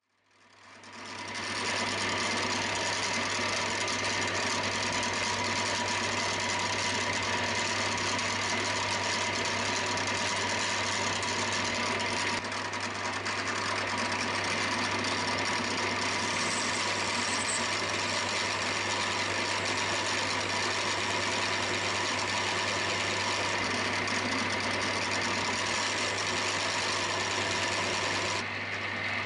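Milling machine spindle running steadily with a constant hum and whine while a small drill bit cuts the crank pin hole in a metal crank web. It fades in over the first couple of seconds.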